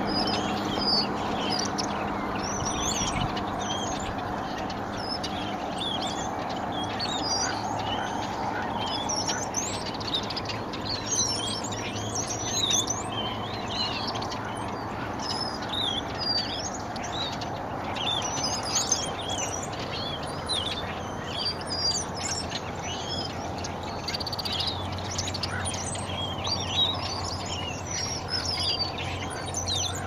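A large flock of small songbirds perched on power lines, chattering constantly in a dense mass of overlapping high chirps and twitters. A steady low rumble runs underneath.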